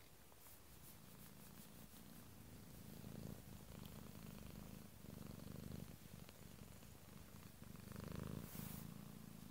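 Calico cat purring softly while being stroked, a low rumble that pulses with her breathing and grows louder about three seconds in. A brief rustle comes near the end.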